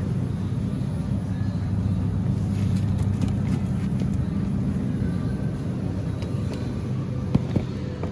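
Steady low hum of a supermarket interior as someone walks through it, with a couple of short knocks near the end.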